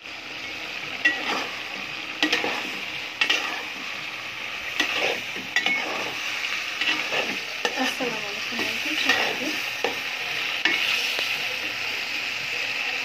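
Chicken curry sizzling in a pan while it is stirred, the spoon knocking and scraping against the pan over and over.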